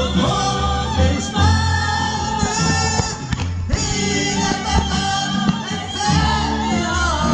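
Live Hungarian folk-rock band playing, with sung vocals carried over a heavy low bass and drums; the music dips briefly about halfway through.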